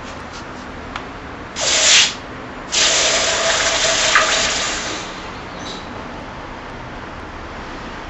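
Hot copper ingot quenched in a pot of water, sizzling and hissing: a short hiss, then a longer one of about two seconds that fades away.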